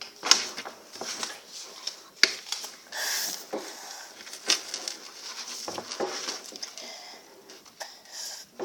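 Hushed, whispered voices with scattered sharp taps and knocks close to the microphone, as hands shift on a wooden tabletop.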